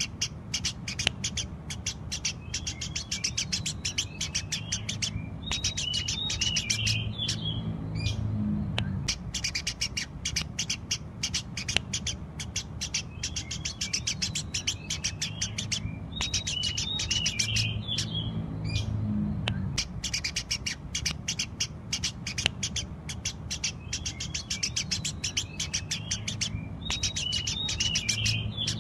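Eurasian tree sparrow chirping rapidly and without a break, a dense run of short sharp chirps broken about every 11 seconds by a brief lower twittering phrase, over a faint low hum.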